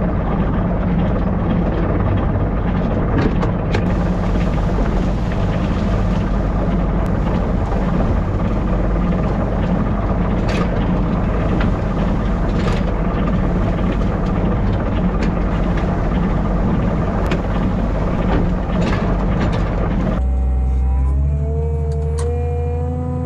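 Farm vehicle engine running steadily, with scattered knocks and rattles. About three seconds before the end it gives way to a low hum and a wavering, drawn-out tone.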